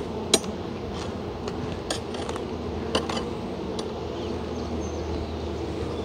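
Honey bees buzzing in a steady drone around an opened wooden hive. Over it come sharp clicks and knocks of a metal hive tool against the wooden frames and box, the loudest about a third of a second in and others near two and three seconds.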